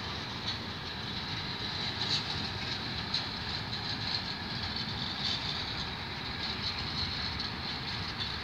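Train wagons rolling past on the rails: a steady rolling noise with a high hiss and a few faint clicks from the wheels.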